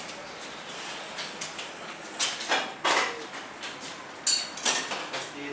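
Several sharp knocks and metallic clinks of aluminium profiles or parts being handled, with a brief high squeak about four seconds in.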